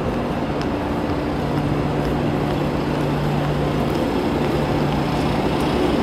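Platform noise beside a standing KTX high-speed train: a steady rumble with a low hum. Scattered footsteps and suitcase wheels roll over the paving stones.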